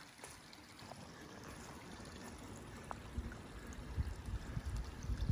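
Wind buffeting the microphone as a low, irregular rumble that grows stronger about halfway through.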